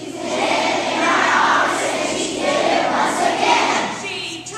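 Large audience of young schoolchildren shouting out together, a loud mixed crowd noise that swells and dips for several seconds.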